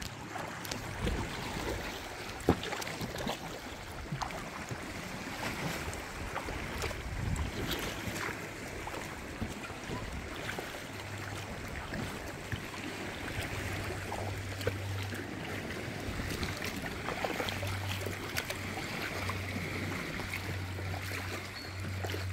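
Water lapping and splashing around a kayak's hull, with small irregular drips and splashes and some wind on the microphone. A low steady hum comes and goes through the second half.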